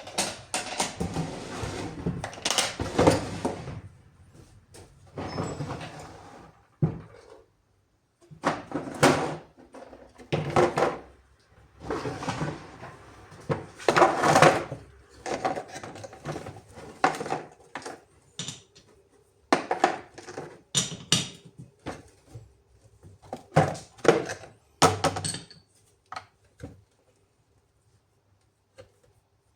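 Irregular knocks, scrapes and clatter of hands working on mobility scooter parts and tools, with a longer run of scraping in the first few seconds and scattered knocks after it, thinning out near the end.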